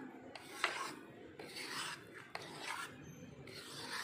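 A metal spoon scraping the thick, freshly cooked besan barfi mixture against the inside of a steel pan, in repeated scraping strokes as it is scooped out, with one sharp knock about half a second in.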